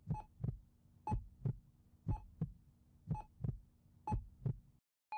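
Heartbeat sound effect: five double thumps (lub-dub), about one a second, over a faint steady hum, stopping just before the end.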